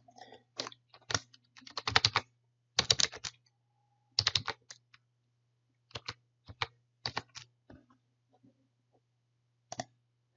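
Computer keyboard typing: keys clicking in short irregular bursts, densest in the first few seconds, then a few scattered clicks, over a faint steady low hum.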